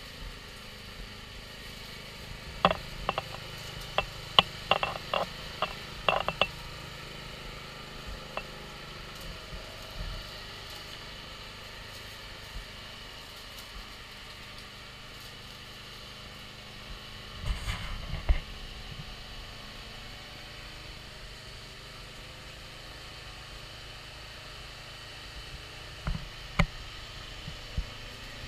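Radio-controlled lawn mower's engine idling steadily in the distance. Runs of sharp clicks and knocks come a few seconds in, again about two-thirds through, and near the end.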